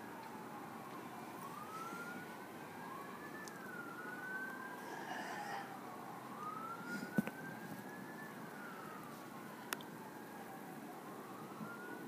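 Fire truck siren on its wail setting, a tone that slowly rises and falls about every five seconds. A few sharp clicks sound over it, the loudest about seven seconds in.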